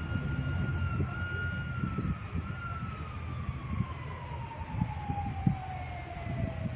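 A siren wailing in one long cycle. Its pitch has just risen and holds high for about two seconds, then falls slowly through the rest, over a low rumble with scattered knocks.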